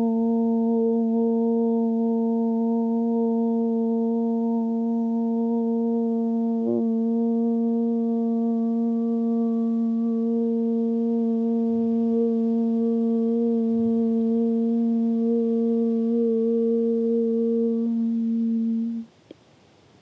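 A woman humming one long, steady low note, a meditative "hum" held on a single pitch for about nineteen seconds, with a slight waver about seven seconds in, then stopping abruptly.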